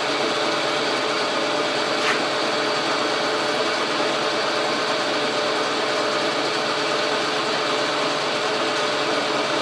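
Logan metal lathe running steadily, turning a 2-inch aluminium rod under a cut. A faint click comes about two seconds in.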